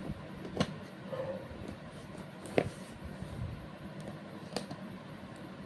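Handling of a phone box and its packaging: three sharp clicks or taps about two seconds apart over a steady low hum.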